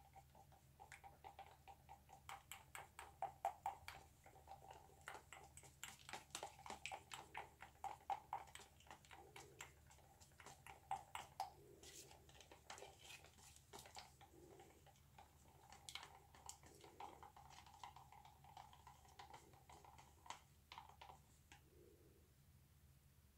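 Faint, quick ticking and scraping of a stir stick against the sides of a plastic cup as acrylic paint is mixed, several ticks a second, with short pauses.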